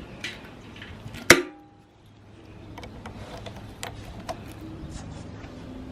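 A single loud, sharp metallic clack that rings briefly, amid lighter clicks and taps over a faint low hum.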